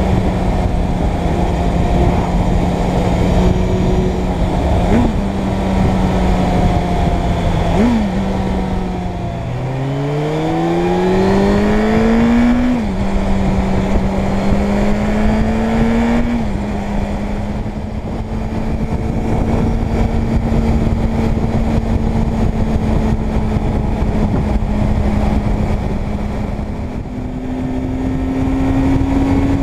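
Suzuki Bandit 600's inline-four engine under way, holding steady revs, then pulling hard and rising in pitch through two upshifts before settling into a steady cruise, with wind rushing over the microphone.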